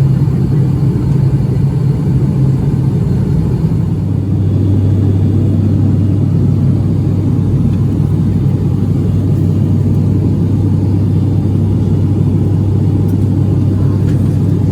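Airliner engines heard inside the passenger cabin: a loud, steady low drone that rises slightly about four seconds in.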